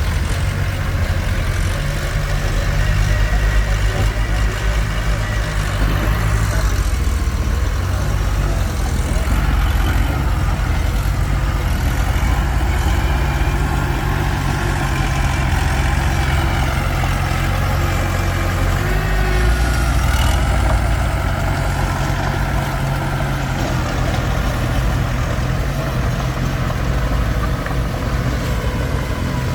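Komatsu D21P bulldozer's diesel engine running steadily under work, its pitch shifting now and then as the load changes.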